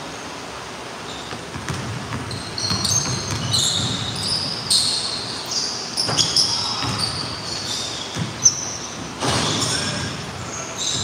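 Basketball dribbling on a hardwood gym floor, with many short high sneaker squeaks as players cut and stop, in a large echoing gym. A sharp thud about eight and a half seconds in.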